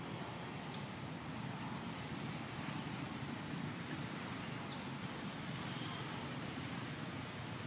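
Steady outdoor background: a low rumble with a high, steady insect drone above it, and no distinct sound standing out.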